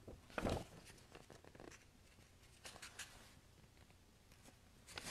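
Picture-book paper pages rustling as they are handled and turned, in a few short bursts of rustle, the loudest about half a second in.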